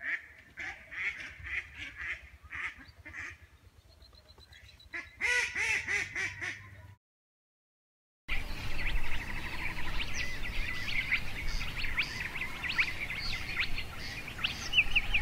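Mallard ducks quacking in a run of calls that ends in a fast series of quacks. Then, after a sudden gap of about a second of silence, a dense stretch of short, high-pitched chirping calls follows.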